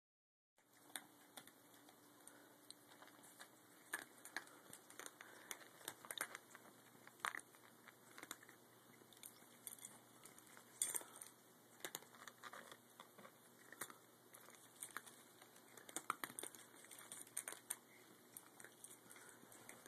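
Cats eating: faint, irregular crunching and clicking of chewing, a few small clicks a second.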